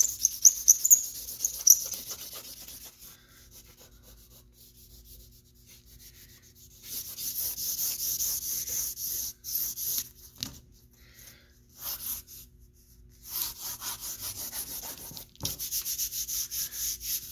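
Vine charcoal scratching across 80-pound drawing paper in quick repeated strokes, shading in a dark background. The strokes come in several stretches, with a quiet pause of a few seconds soon after the start and shorter pauses later.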